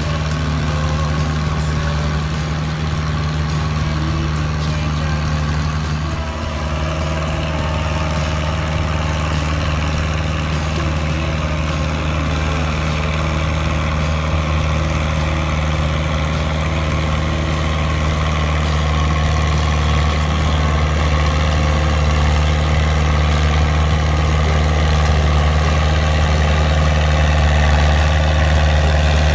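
Fiat 80-66 DT tractor's four-cylinder diesel engine running steadily, growing a little louder toward the end.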